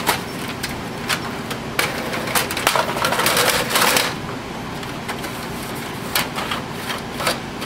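Plastic paper tray of a Brother MFC-J6925DW inkjet printer being handled: a few sharp clicks and knocks, then a sliding noise lasting about a second and a half as the tray is pushed into the printer, then more clicks near the end.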